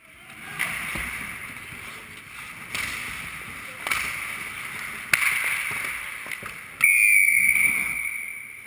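Ice hockey play heard from a camera mounted in the goal: skates scraping on the ice with several sharp clacks of sticks and puck. About seven seconds in comes a sudden, louder, sustained high-pitched sound that fades away over a second or two.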